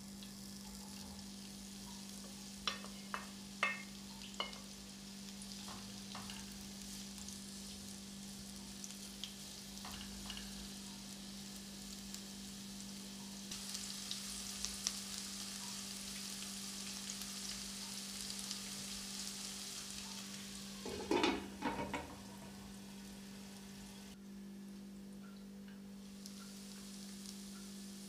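Sliced red onions sizzling in oil in a non-stick frying pan over a steady low hum, the sizzle growing stronger from about halfway. A few sharp clicks come a few seconds in, and a brief louder clatter about three quarters of the way through.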